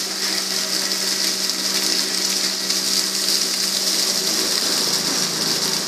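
Water pouring steadily from an overhead outlet and splashing onto a person standing beneath it. Under it runs a steady low machine hum.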